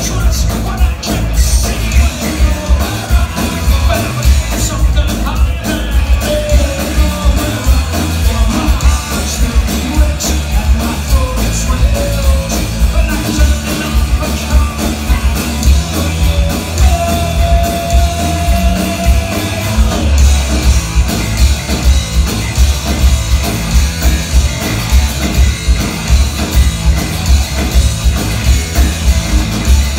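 A Celtic punk band playing loud and live through a venue PA: distorted electric guitars, bass and a steady driving drum beat, with a male singer shouting the vocals. The sound is heavy in the low end, as heard from the crowd.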